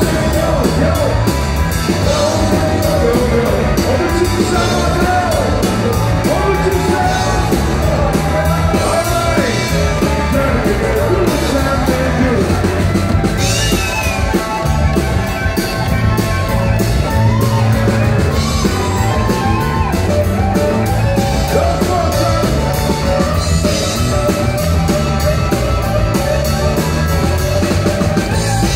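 Live rock band playing loud: a man sings over electric guitar, bass and drums, then in the second half a Les Paul-style electric guitar takes the lead, with sustained and bent notes over the band.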